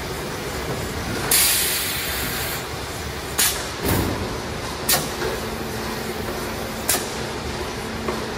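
Automatic can palletizer working over a conveyor of empty tinplate cans: a steady machine noise, a loud burst of air hiss about a second in, then several sharp knocks over the next few seconds as the gripper and cans move.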